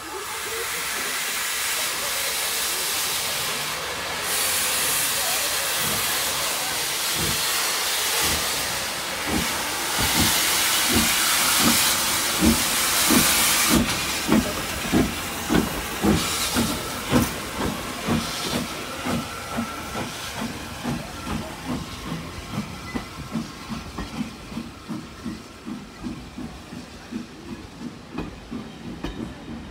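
Hunslet Austerity 0-6-0 saddle tank No. 3193 pulling away with a passenger train. Steam hisses loudly from its open cylinder drain cocks, and exhaust chuffs begin slowly about seven seconds in. The chuffs quicken to an even beat of two or three a second as it gathers speed, then grow fainter as it moves off, with the coaches rolling past.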